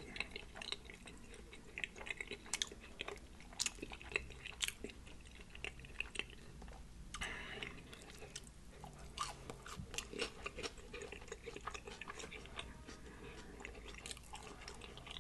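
Close-up mouth sounds of a person chewing a birria and cheese pupusa: a run of soft, irregular wet smacks and crunchy clicks as the food is chewed.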